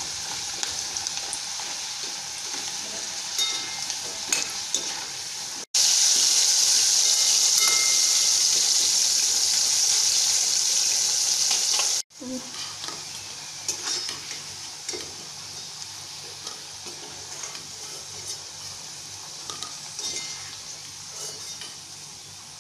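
Elephant foot yam pieces deep-frying in oil in a steel kadai, sizzling steadily, with a slotted steel ladle clinking and scraping against the pan as the pieces are stirred and lifted out. The sizzle turns suddenly much louder about six seconds in and drops back just as suddenly about twelve seconds in.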